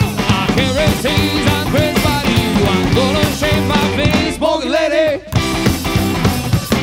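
Live rhythm and blues band of harmonica, electric guitar, double bass and drums playing at full volume with a steady beat. About four and a half seconds in, the bass and drums drop out briefly under a single wavering held note, then the full band comes back in.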